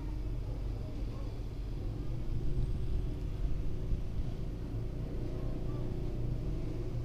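A steady low rumble and hum with faint indistinct sounds above it, unchanging throughout.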